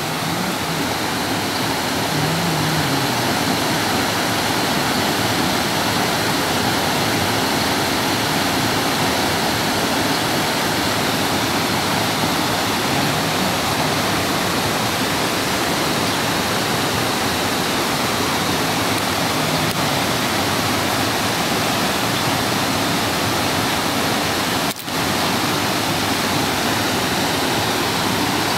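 Small travertine cascades of Havasu Creek rushing steadily over a series of low drops into a pool. The sound dips for an instant near the end.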